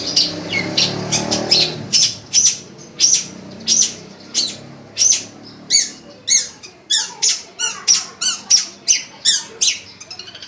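A pet songbird singing a fast, varied string of sharp whistled and squawky notes, about two or three a second, some sweeping up or down in pitch. It is the copied-sounds song of a bird that picks up whatever it hears.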